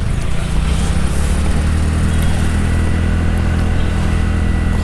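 TVS Ntorq 125 scooter's single-cylinder engine running steadily as the scooter picks up speed, with wind and road hiss over it.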